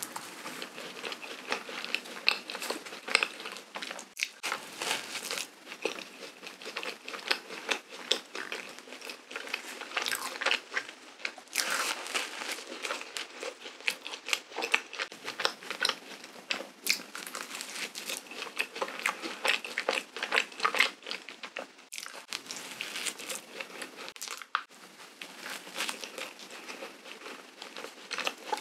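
Close-miked eating of a powdered-sugar, whipped-cream-filled donut: a bite into the soft dough, then steady chewing with a dense run of small sticky, crackly mouth clicks.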